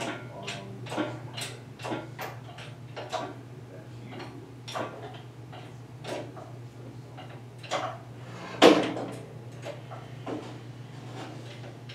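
Irregular metallic clicks and clanks, one or two a second, as an engine hoist is worked and its lifting chains draw tight, with one louder clank about nine seconds in. A steady low hum runs underneath.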